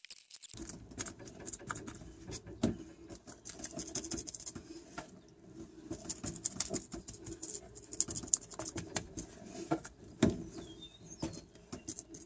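Paintbrush dabbing resin into fiberglass mat, a busy irregular patter of short taps with a few louder ones, working the air bubbles out of the laid-up glass.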